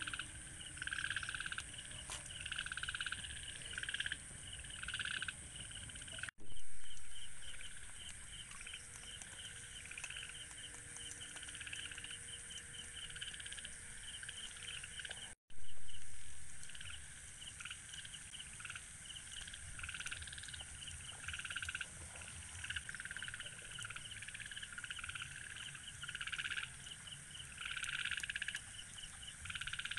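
Night chorus of frogs calling in quick pulsed croaks over a steady high insect drone. The sound breaks off briefly twice and comes back with a short louder swell.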